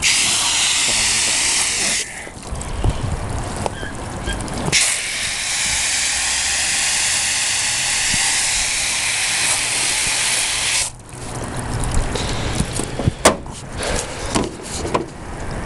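Spray nozzle hissing as it sprays water onto a condenser coil to rinse off the coil cleaner. There are two spraying bursts, a short one and then a longer one of about six seconds, followed by scattered knocks and taps.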